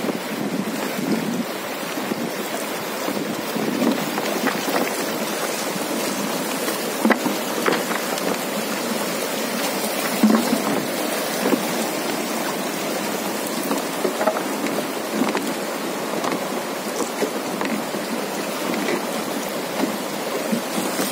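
Fast, choppy river water rushing and splashing around a wooden raft: a steady rush with a few brief, sharper splashes about a third and halfway through.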